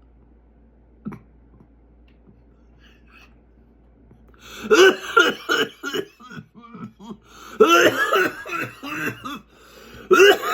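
A person coughing hard after inhaling smoke, in repeated hacking fits that start about four and a half seconds in and come back twice more.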